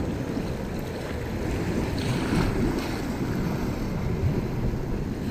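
Sea waves washing, with wind buffeting the microphone; a louder wash swells up about two seconds in.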